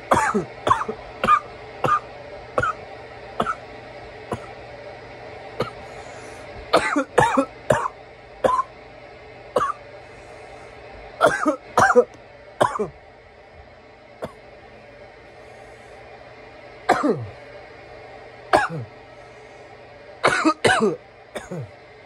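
A man coughing in fits after smoking from a bong: clusters of short, harsh coughs a few seconds apart, with single coughs in between.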